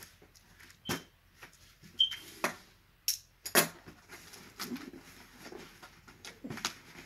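Cardboard shipping box handled and its taped flaps pried open by hand: irregular knocks, scrapes and rustles of cardboard, with a few sharper knocks and a brief squeak in the first four seconds.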